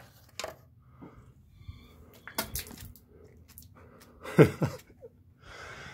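A man makes one short, loud guttural noise with a steeply falling pitch about four seconds in, amid a few quiet clicks and knocks.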